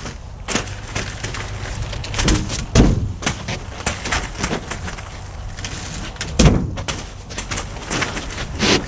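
Rolls of black plastic mesh being rolled off a flatbed trailer, with several knocks and thuds on the deck and the ground below, loudest about three seconds in and again just past six seconds.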